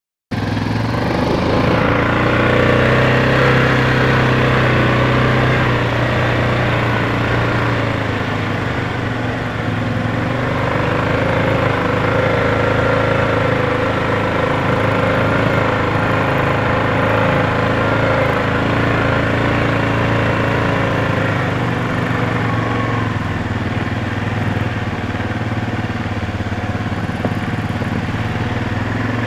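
Small engines running steadily at low speed: the ATV carrying the camera runs close by, and a child's Honda 50 dirt bike, a small single-cylinder four-stroke, runs ahead of it.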